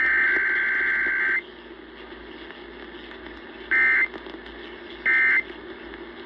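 Emergency Alert System SAME data tones on broadcast radio: a long burst of the header code, about a second and a half, then after a pause two short end-of-message bursts about a second and a half apart, all over steady radio hiss. It is a required weekly test with no attention signal.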